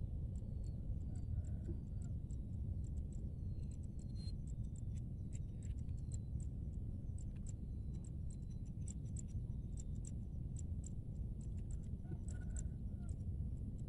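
Outdoor ambience by a pond: a steady low rumble with quick, sharp high ticks scattered irregularly throughout, a few each second, and a few faint short high chirps.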